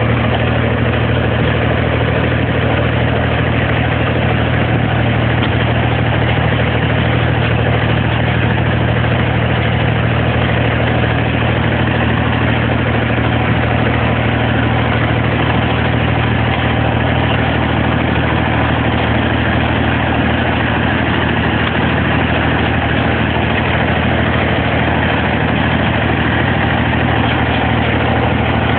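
Engine of the machine towing a homemade wheel hay rake, running steadily at an unchanging speed.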